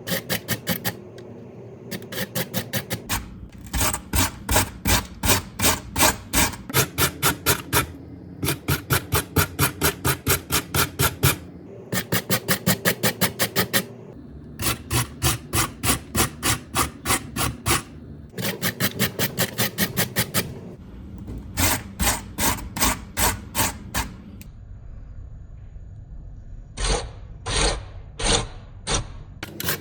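Raw potato being grated by hand on a grater: rhythmic rasping strokes, about three to four a second, in runs of a few seconds with short pauses between, ending in four slower, separate strokes.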